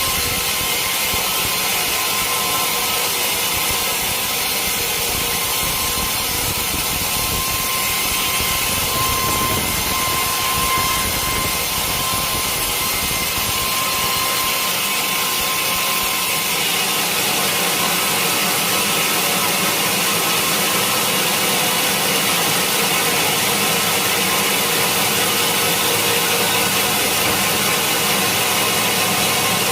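Sawmill machinery running steadily, a loud, even noise; its sound shifts about sixteen seconds in.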